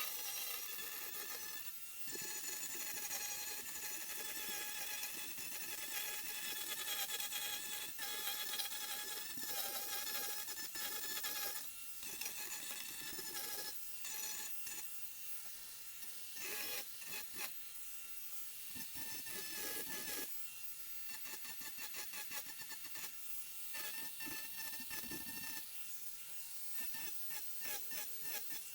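Merlin2 miniature angle grinder fitted with a tungsten carbide burr disc, its small motor whining at high speed while the burr grinds into wood. It runs steadily at first, then in shorter passes with brief pauses.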